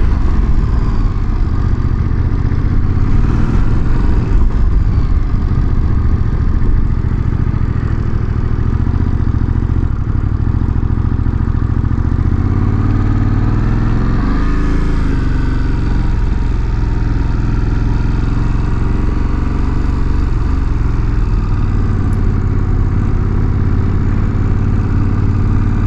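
Motorcycle engine running as the bike is ridden, with its pitch shifting briefly about halfway through, under a heavy low rumble of wind on the microphone.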